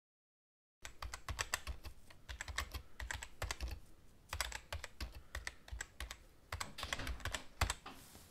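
Rapid, irregular keyboard key clicks, typing in quick runs. They start about a second in, break off briefly around four seconds and again around six and a half, and go with text being typed out on screen.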